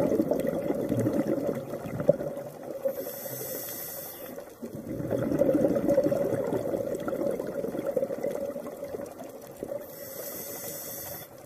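Underwater water noise as picked up by an underwater camera: a steady crackling rush of water, with a brief high hiss heard twice.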